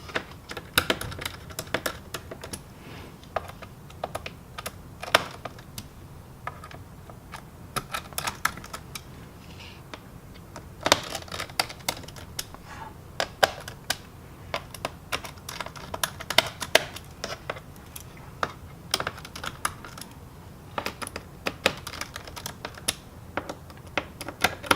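Precision screwdriver tightening the screws of a laptop's plastic bottom panel: irregular sharp clicks and taps as the bit seats in the screw heads and turns.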